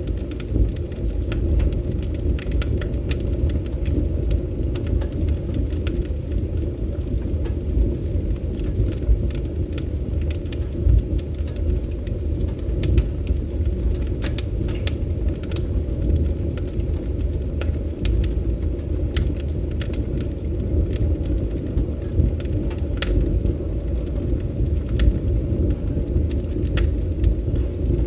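Wood fire burning in a fireplace: irregular sharp crackles and pops scattered throughout, over a steady low rumble of the flames.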